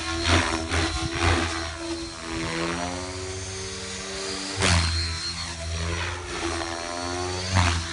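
Electric RC helicopter (Align T-Rex 500L) in flight: the high whine of its motor and rotor, sagging in pitch and climbing again as it manoeuvres. There are sharp whooshing surges of rotor noise near the start, about five seconds in, and near the end.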